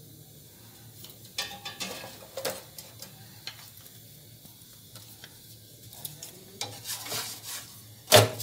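Rotis being turned and shifted on a non-stick tawa over a gas burner: soft scraping and rustling in two spells over a low steady hum, then one sharp knock against the pan near the end.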